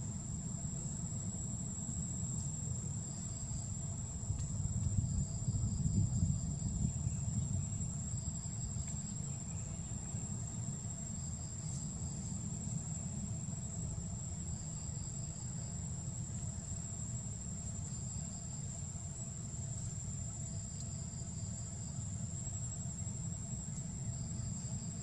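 Insects droning steadily at a high pitch, with a short chirping trill every two to three seconds, over a low rumble that swells about five seconds in.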